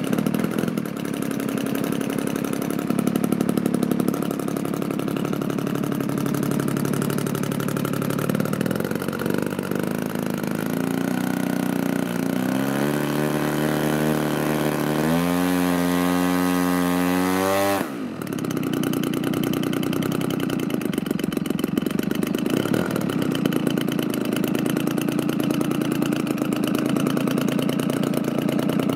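Large radio-controlled airplane's engine running, then revving up with its pitch climbing in steps for several seconds. It breaks off abruptly about two-thirds of the way through, and a steady engine sound resumes after it.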